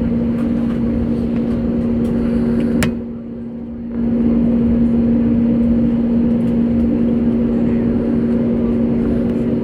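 Steady cabin drone inside an Airbus A320neo on the ground after landing, with a constant low hum tone. A sharp click about three seconds in is followed by about a second of muffled sound, and then the drone comes back.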